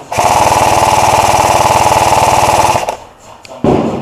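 G&P MK23 Stoner 63 airsoft electric machine gun firing a long full-auto burst, its gearbox cycling in a fast, even rattle that cuts off just under three seconds in. A short thump follows near the end.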